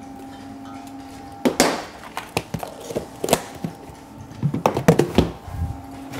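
Irregular knocks and clatter of bottles and bar items being handled and set down behind a bar counter, starting about a second and a half in, after a steady low hum.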